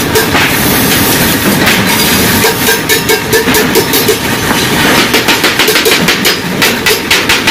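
A hammer striking the seam of a rolled stainless steel sheet in quick blows, about three a second, starting about five seconds in. A steady metallic clatter runs underneath.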